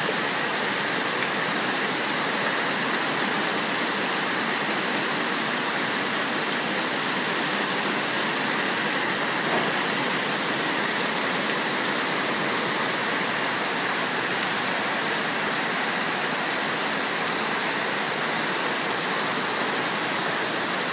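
Heavy rain mixed with small hail falling steadily, pattering on parked cars and wet pavement, with an even, unbroken hiss.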